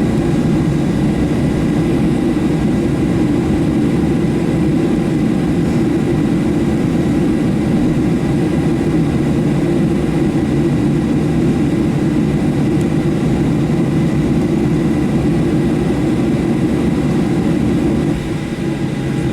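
Steady low rumble inside the cabin of a Boeing 737-700 after landing, from its engines at idle and the cabin air. The rumble eases slightly near the end.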